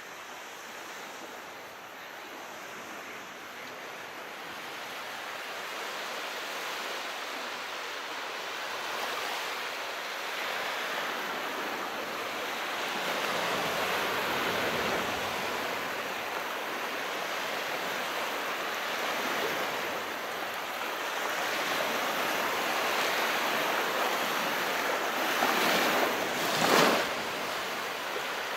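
Calm sea waves, a steady wash that slowly swells, with one louder wave surging briefly near the end.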